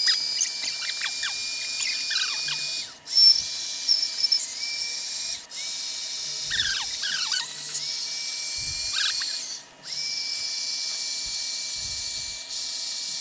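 Small handheld electric air pump running with a steady high whine as it inflates a multi-chamber car-camping air mattress through its separate valves. The pump cuts out briefly about three times as it is moved from valve to valve, with a few soft knocks and squeaks from handling the mattress.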